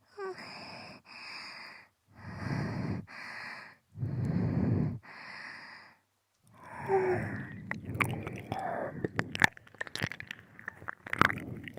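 Close binaural breathing: a series of short, breathy exhales with silent gaps between them, followed about six seconds in by wet mouth clicks and smacking of ASMR ear licking.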